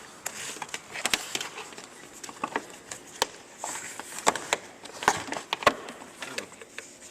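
Hard plastic parts knocking and clicking as a piece is worked and clipped into place under the car's cowl: a handful of short, sharp clicks at irregular intervals.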